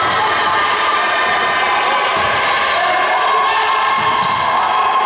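Basketball being dribbled on a hardwood gym court during play, against a steady din that fills the hall.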